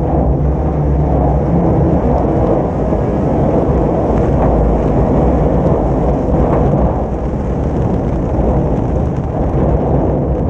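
Folk-race car running hard at race speed on a wet track, its engine a loud, steady low drone under a heavy rumble of wind and road noise on the car's outside-mounted camera.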